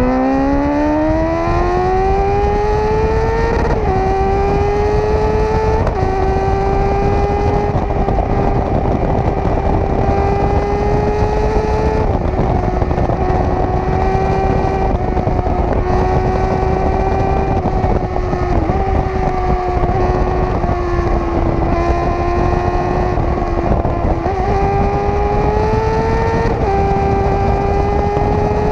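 Sport motorcycle engine under hard riding: its pitch climbs for about four seconds, drops at gear changes, then holds high with small rises and falls as the bike cruises fast. Heavy wind rush on the microphone runs under it.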